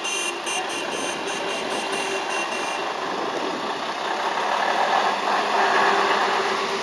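Old fire tanker truck's engine running as the truck drives slowly past close by, growing louder in the second half as its rear and exhaust pass. During the first three seconds a rapid high electronic beeping, about four pulses a second, sounds over it and then stops.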